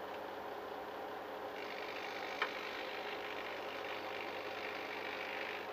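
Small RC servos whirring faintly as a servo tester drives them, growing brighter about one and a half seconds in, with a single click near the middle.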